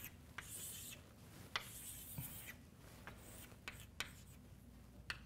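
Chalk drawing on a blackboard: faint scratchy strokes lasting about half a second each, with several sharp taps of the chalk on the board.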